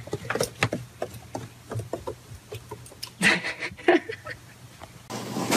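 A dog's paws crunching irregularly in snow as it hops down snowy steps, with a person chuckling briefly just past three seconds in. A steady noise takes over near the end.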